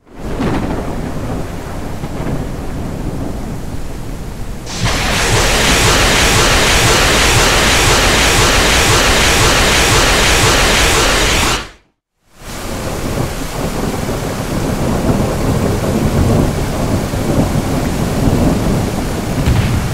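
Rain with low thunder-like rumbling, then, about five seconds in, a much louder rocket-launch roar from a truck-mounted launcher that ends suddenly a little before twelve seconds. After a moment's silence the rain and rumbling return.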